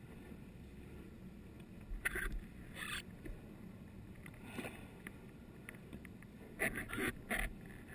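Underwater scuba breathing: a diver's exhaled bubbles rush past the camera housing in short bursts, about two seconds in, once more in the middle, and again near the end, over a low steady underwater rumble.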